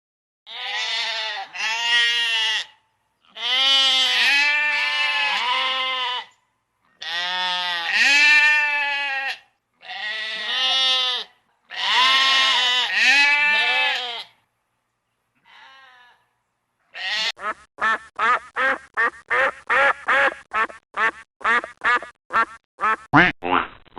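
Farm animal calls: a series of long, wavering bleats, each a second or two, then a fast run of short duck quacks, about two or three a second, near the end.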